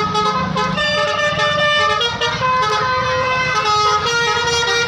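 A tour bus's telolet horn, a multi-tone horn, playing a melody of held notes that step from one pitch to the next, over the low sound of the bus engine running.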